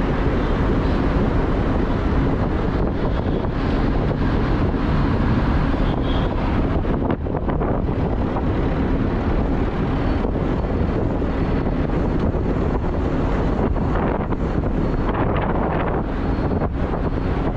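Steady road and wind noise of a car driving on an expressway, with wind buffeting the microphone in a low, uneven rumble.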